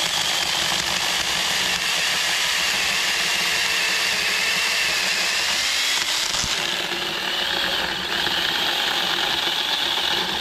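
A 24 V battery-powered 6-inch mini chainsaw runs without a break, its electric motor whining with the chain cutting through an old cedar limb. The whine wavers a little in pitch under load.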